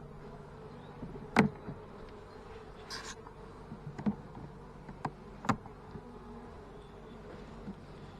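Italian honey bees buzzing in a steady hum from an opened hive, with a few sharp knocks and clicks, the loudest about a second and a half in.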